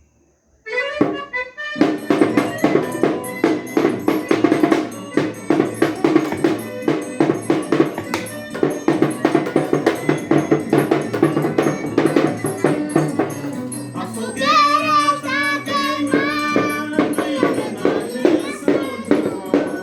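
Music with a fast, steady percussion beat; a wavering melody line comes in about two-thirds of the way through.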